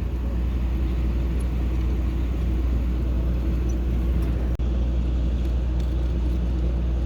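Steady low rumble of an idling vehicle engine, with a few faint light clicks over it. The sound drops out for an instant a little past halfway.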